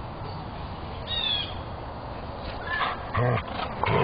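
Dogs squabbling over a bone: a brief high-pitched squeal about a second in, then a short low growl about three seconds in.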